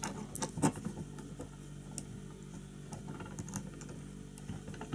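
Light metallic clicks and taps from a homemade copy of a Nor-Vise fly-tying vise being handled with a hex key while its jaws are swapped for a smaller set. A quick cluster of clicks comes in the first second, then scattered single ticks.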